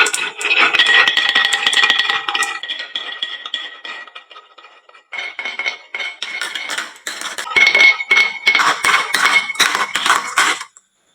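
Marbles clattering down a wooden marble run and into toy trucks: a dense stream of quick clicks and clinks with a ringing tone. It thins out almost to nothing about four and a half seconds in, starts again about a second later, and stops suddenly just before the end.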